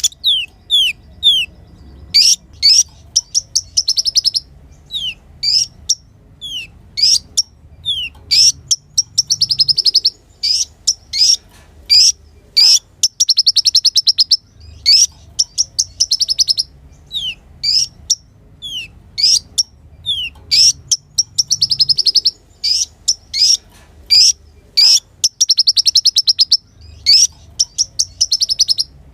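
Kolibri ninja (konin) sunbird singing: sharp high chirps that sweep downward, mixed with fast trills of rapidly repeated notes, phrase after phrase with short gaps between.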